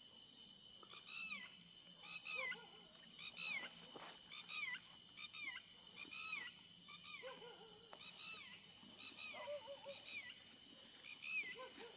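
Birds calling repeatedly in short, downward-arching notes, with a few lower calls in the second half, over a steady high-pitched whine.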